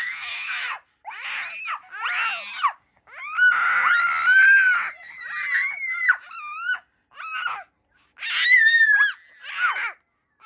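A baby shrieking in a run of high-pitched squeals, about nine in all, with short breaks between them; the longest lasts about a second and a half, a little over three seconds in.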